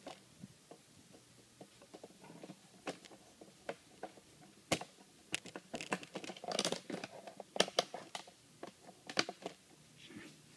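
Handling noise: a string of sharp clicks, taps and short rustles as things are picked up and moved, busiest in the middle of the stretch.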